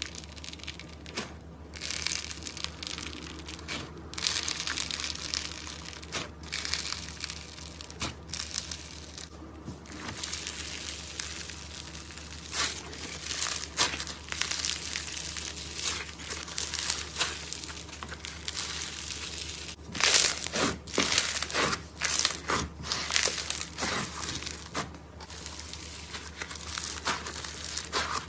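Slime being squeezed and worked by hand, giving irregular crackling, crinkly sounds in clusters, loudest about two thirds of the way through, over a faint steady hum.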